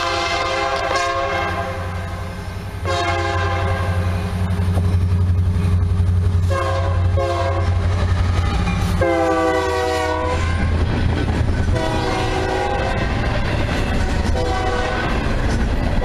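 Union Pacific SD70M diesel locomotive sounding its multi-chime horn in repeated long and short blasts as it approaches and passes. The horn's pitch drops as it goes by, about nine seconds in. Under the horn is the low drone of the EMD two-stroke V16 engine, loudest as the locomotive draws level, and after it comes the rolling clatter of double-stack intermodal well cars.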